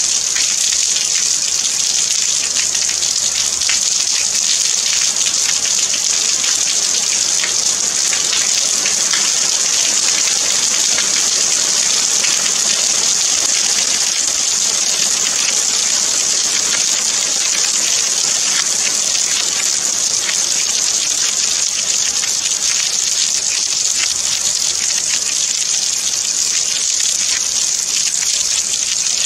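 Steady rain falling: a loud, even hiss with a fine patter of individual drops and no change in strength.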